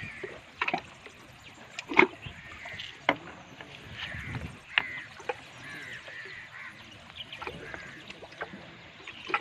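Scattered sharp clicks and knocks from hands working a small caught fish off a hook and handling the fishing line, the loudest about two seconds in.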